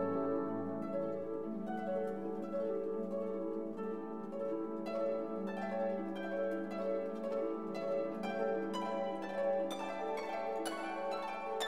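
Instrumental background music: held chords with plucked-string notes, the plucked notes coming faster in the second half.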